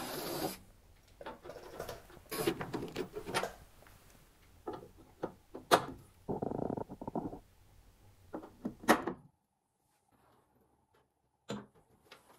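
A cordless drill runs for a moment in a threaded hole in a car tailgate, cleaning paint out of the gas-spring mounting threads. Then come scattered clicks and knocks of metal and plastic parts as a gas spring is fitted onto its mount. The sharpest knock comes near the middle, after which it goes almost quiet apart from one more knock.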